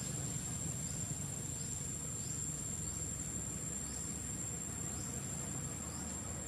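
Insects drone with a steady high whine, and faint short chirps repeat about once a second, over a low steady rumble.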